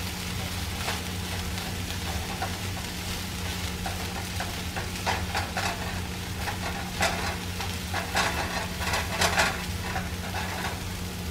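Diced onions, carrots and peas frying in butter in a nonstick pan, sizzling steadily, while a slotted spatula stirs and scrapes through them in a run of strokes that come thicker in the second half. A steady low hum sits underneath.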